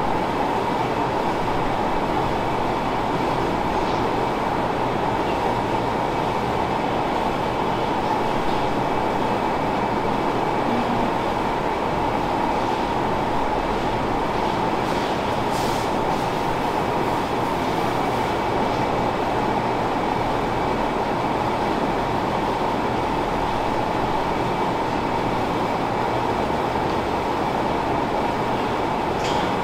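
Steady, unbroken noise of a dairy milking parlor's milking equipment running while cows are milked, with a constant hum-like tone through it. A brief hiss is heard about midway.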